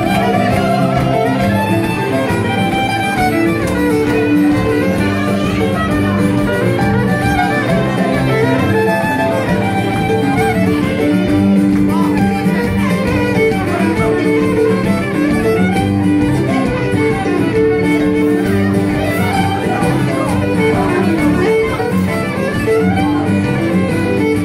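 Fiddle playing a traditional Acadian tune over acoustic guitar accompaniment, live and unamplified-sounding, without a break.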